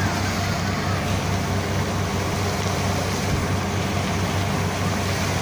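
Truck-mounted borewell drilling rig running steadily, its engine droning under the steady rush of air blasting water and rock cuttings up out of the bore: the bore has struck water.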